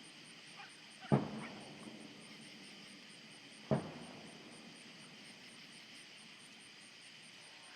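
Distant fireworks shells bursting less than a mile away: two deep booms, about a second in and again about two and a half seconds later, each trailing off in a short echo.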